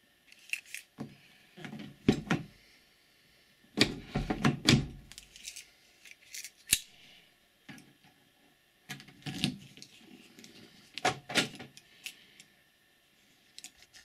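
Car key being worked in a Seat's driver's door lock cylinder: scraping and clicks of the key blade going in and turning, with the key fob and ring jangling. Several short clusters of this, and one single sharp click about halfway through.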